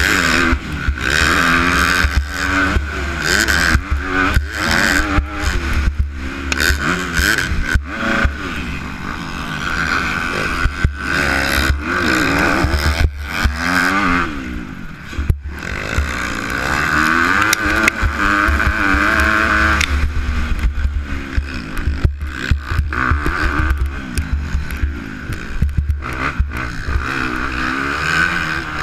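250-class motocross bike engine revving hard and backing off as it is ridden around the track, its pitch rising and falling through the gears, with wind buffeting the helmet-mounted microphone. Frequent knocks and clatter come from the bike over the bumps, and the engine drops away briefly about halfway.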